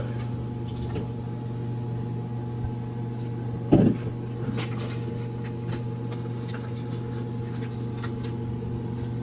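Light clicks and rustles from handling a small plastic action-figure helmet and head, over a steady electrical hum. One dull thump, the loudest sound, comes a little under four seconds in.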